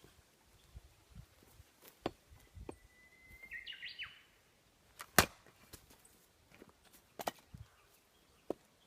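Scattered sharp knocks and clacks of firewood being worked, the loudest about five seconds in, with a short chirp-like call between them.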